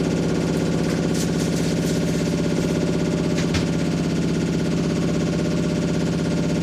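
Washing machine making a steady, pitched droning noise with a fast pulsing rattle in it, plus a few light clicks about a second in and one sharper click about halfway through.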